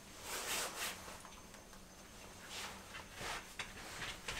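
Soft fabric rustling and rubbing in a few short bursts as a coat is fitted onto a dog.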